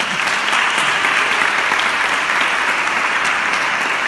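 Audience applauding: many people clapping hands together, steady and sustained.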